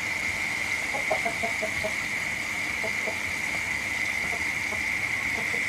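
Crickets chirping in a steady, high-pitched night chorus, with a few faint short calls from another animal about a second in.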